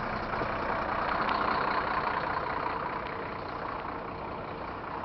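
Diesel engine of a Mercedes-Benz OF 1724 bus running steadily, a little louder about a second in and easing off after about three seconds.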